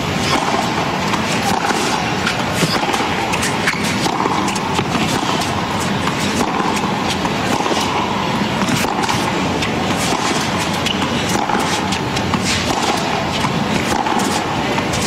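Tennis ball struck by racket after racket in a baseline rally on a hard court, sharp hits coming every second or so over a steady hiss of stadium crowd noise.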